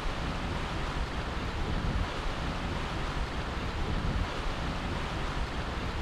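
Stream water rushing steadily, an even wash of noise heard close up.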